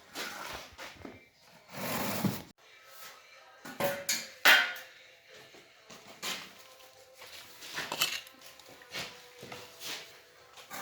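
Irregular scrapes and knocks of a steel trowel and bricks during fireplace bricklaying, the loudest clatter about four and a half seconds in, with faint music underneath.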